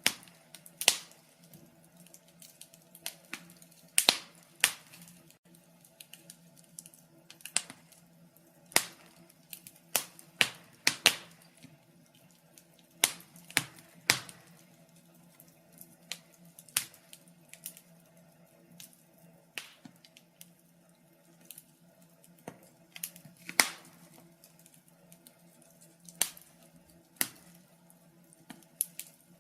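Wood fire crackling: irregular sharp pops and snaps, sometimes two or three close together, over a faint steady low hum.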